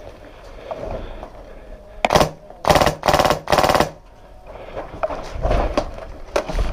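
Airsoft gun firing four short full-auto bursts in quick succession, each a rapid rattle of shots, about two seconds in.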